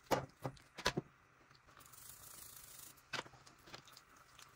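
Ground meat being put into hot oil and seasoned: a few light clicks and knocks of utensils and containers, with a short soft hiss in the middle.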